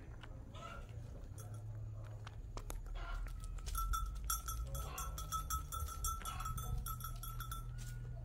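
Metal bell on a goat's collar jingling rapidly and steadily for several seconds, starting about three seconds in.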